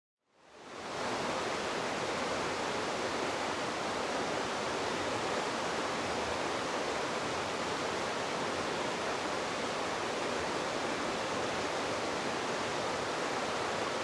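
Mountain river rushing steadily over rocks and rapids, fading in over the first second.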